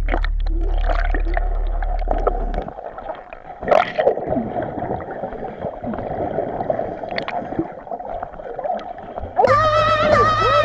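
Muffled underwater gurgling and bubbling picked up by a camera held under river water, with scattered clicks and knocks. Background music comes back in near the end.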